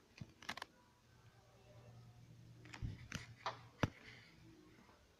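Handheld camera handling noise: a few sharp clicks and knocks, clustered around three to four seconds in, over a faint low hum in a quiet room.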